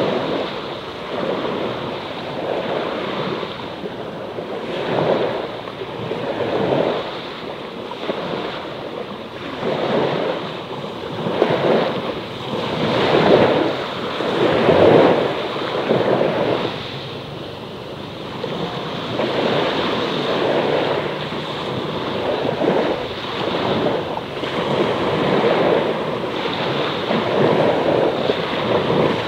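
Small sea waves washing on the shore in repeated surges every second or two, with a steady hiss between them.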